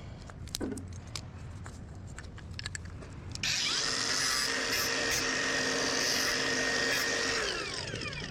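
A handheld power tool starts abruptly a few seconds in, runs steadily at full speed for about four seconds, then is released and winds down with a falling pitch.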